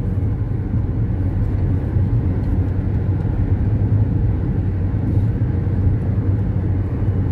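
Steady low rumble of a car driving on a highway, heard from inside the cabin: engine and tyre-on-road noise with no sudden changes.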